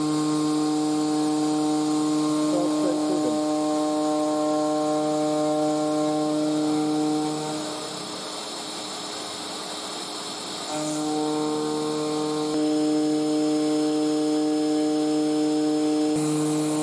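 DIY CNC router's spindle and end mill milling a pocket in aluminium plate: a steady, pitched cutting whine over a hiss. The whine breaks off for about three seconds in the middle, leaving only the quieter hiss, then starts again.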